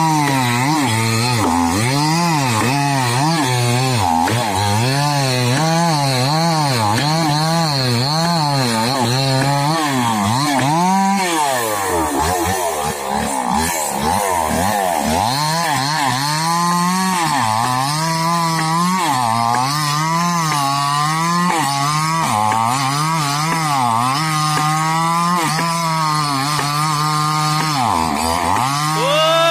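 Small two-stroke chainsaw cutting into the trunk of a large pulai tree. The engine pitch rises and falls about once a second as the saw is worked in the cut. For a few seconds around the middle the engine slows under the load, then picks back up.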